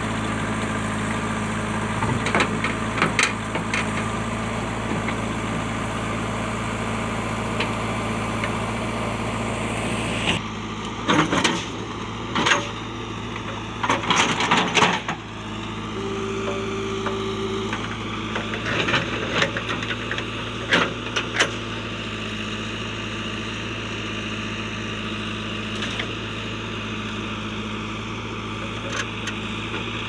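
JCB backhoe loader's diesel engine running steadily while the backhoe bucket digs through rocky soil. Scattered knocks and scraping of stones against the steel bucket come over it, loudest in a cluster about halfway through.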